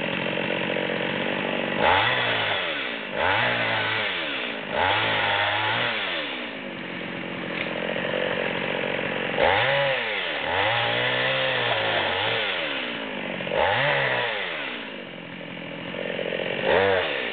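Solo 656 two-stroke chainsaw with a 16-inch bar cutting ash branches. The engine revs up to full throttle about seven times, a second or two each, and drops back between cuts, settling to a lower idle for a few seconds twice.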